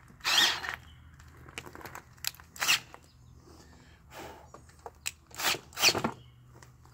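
Cordless drill run in short bursts, four or five brief spurts with pauses between, as the bit drills out a stripped engine-mount bolt hole in a Kohler Courage engine block to take a Heli-coil thread insert.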